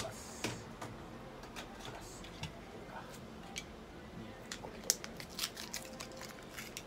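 Plastic packaging of a spot-on parasite-preventive pipette being handled and opened: scattered crinkles and sharp clicks, thickest about five seconds in.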